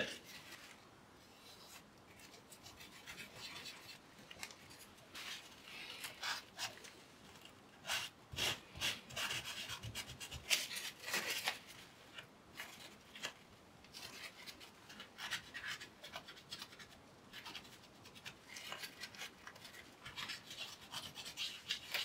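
Cloth dampened with isopropyl alcohol rubbing old thermal paste off a laptop's CPU and GPU dies, in faint, short, irregular scrubbing strokes.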